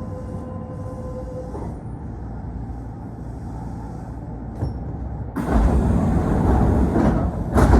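Inside a stopped electric train car: the equipment hums steadily, with a steady tone that stops about a second and a half in. A click comes about four and a half seconds in, then a loud rushing noise starts about five and a half seconds in and peaks sharply near the end.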